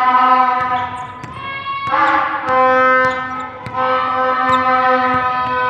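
A loud, steady horn-like tone held for seconds at a time, breaking briefly about two seconds in and again near four seconds, over the knocks of a basketball bouncing on the hardwood court.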